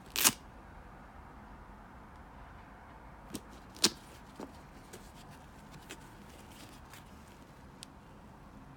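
Hands handling an Adidas Yeezy Boost 750 sneaker and its velcro ankle strap: a few short, sharp clicks and snaps over quiet handling. The loudest comes just at the start and another about four seconds in.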